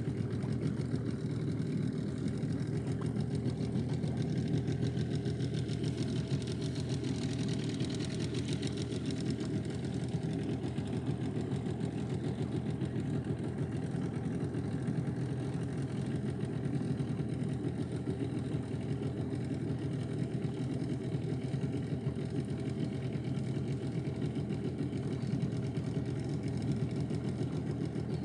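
A boat engine running steadily with a fast, even pulse, unchanged throughout.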